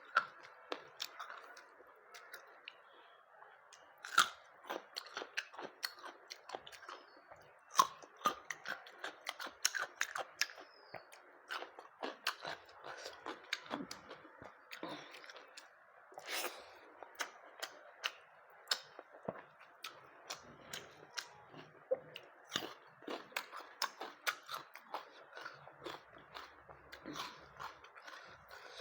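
Close-miked eating: a person chewing and crunching mouthfuls of a rice meal with raw onion and green chilli. Irregular sharp crunches and wet clicks come several times a second, over a faint steady hiss.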